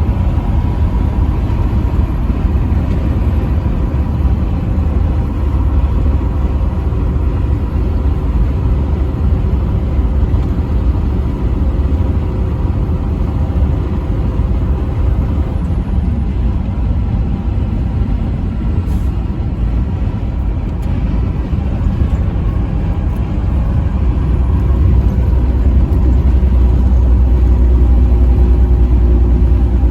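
Truck driving on a highway: steady engine and road rumble that grows louder and deeper over the last few seconds.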